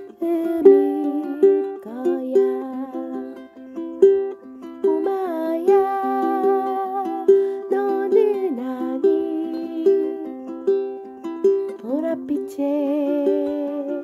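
Background music: a gentle tune of short plucked notes.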